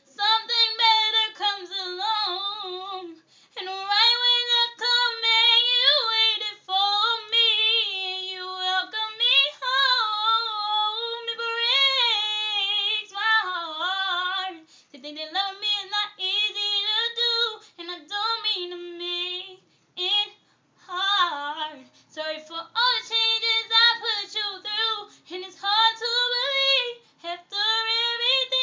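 A young woman singing an R&B ballad a cappella, solo voice with no accompaniment, with wavering held notes and runs and short breaths between phrases.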